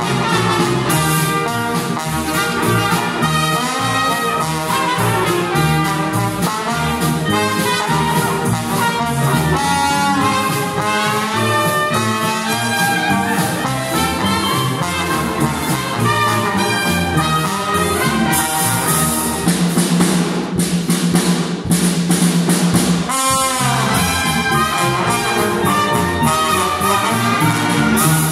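Live Dixieland jazz band playing: trumpet, trombone and saxophones over a drum kit. Past the middle a low note is held for a few seconds, and the tune closes with the music stopping at the very end.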